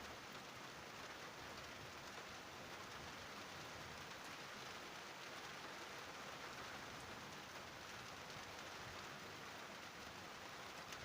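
Steady rain falling in a thunderstorm, a faint, even hiss.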